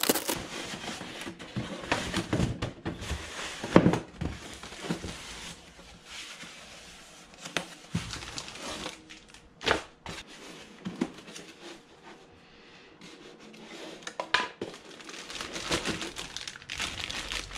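Plastic packaging crinkling and rustling as kit parts are handled and unwrapped, with a few sharp knocks along the way.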